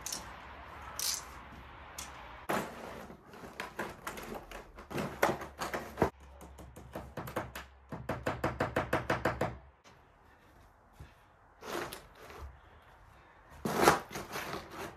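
Knocking and clattering as a dimpled plastic membrane is worked into a wooden raised bed, with a quick even run of clicks, about eight a second, in the middle and a louder knock near the end.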